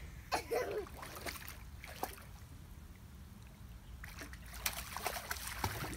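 Water splashing in a swimming pool as a toddler kicks and paddles through it, the splashing heaviest in the last two seconds.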